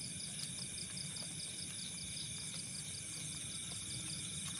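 A night chorus of crickets and other insects chirping steadily, with fast, even pulses, over a low continuous rumble.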